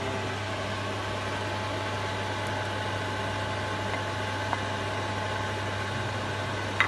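A steady low hum with a hiss over it while vegetables are stirred into a pan of simmering broth on a gas stove. A faint knock about four and a half seconds in and a sharper clack near the end come from the wooden spatula against the pan.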